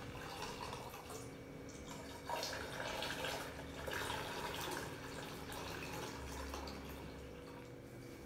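Milk being poured in a steady stream into a saucepan that is already part full, a liquid splashing pour that grows louder about two seconds in, then eases off.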